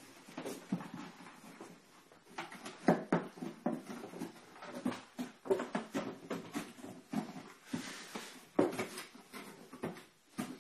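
A dog tearing into a cardboard box, with irregular rips, crackles and rustling of the packaging and the loudest tears about three and eight and a half seconds in.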